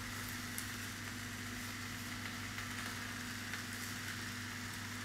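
Vegetables frying in a pan, a gentle, steady sizzle with a few faint crackles, over a steady low hum.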